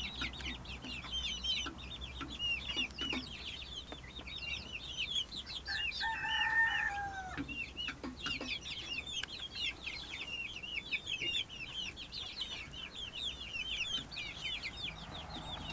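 A brood of young chicks (bantam Cochin, Millefleur, Silkie, Brahma and Italian) peeping constantly in rapid, high chirps. About six seconds in, one longer, lower call is held for about a second and a half and dips at its end.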